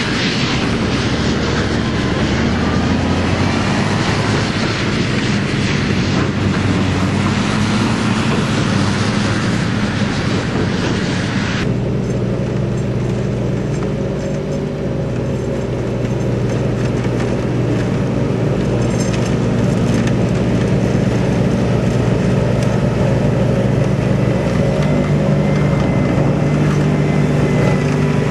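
A New Holland FX300 self-propelled forage harvester and a tractor running steadily at work. For the first twelve seconds or so, a loud rushing hiss rides over the engine drone. It then drops away abruptly, leaving the steady engine drone.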